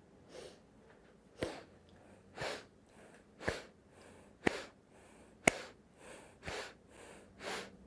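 A person taking short, sharp sniffing inhales through the nose, about one a second, eight in all, several with a sharp click at the start. These are the rhythmic nasal breaths of the 'hug your shoulders' breathing exercise, each inhale made as the arms snap round the shoulders.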